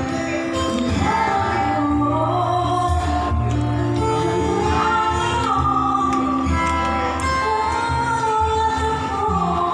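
Background music: a song with a woman singing held, gliding notes over a steady bass beat.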